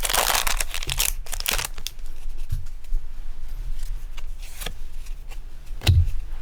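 A Pokémon booster pack's foil wrapper torn open and crinkled during the first two seconds, then quieter handling with a few soft taps and a heavier knock near the end.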